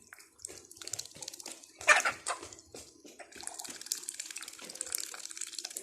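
Ducks splashing and dabbling in shallow water: scattered small splashes, a louder splash about two seconds in, then a rapid, steady patter of small splashes.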